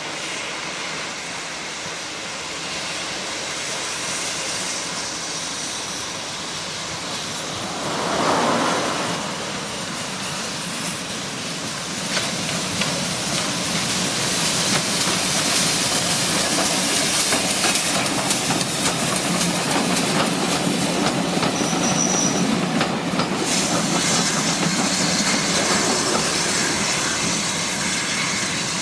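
Steam train on the move: steam hissing and the wheels clicking over the rail joints, getting louder about twelve seconds in as the train draws close, with a short brief squeal of wheels on rail later on.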